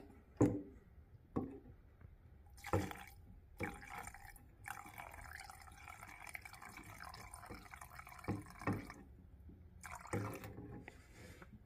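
Thinner being poured into a plastic paint-mixing cup of enamel paint: a faint, even trickle lasting about four seconds, with a few light knocks before and after it.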